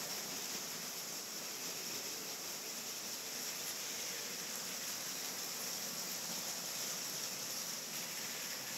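A steady, even hiss with no distinct sounds standing out.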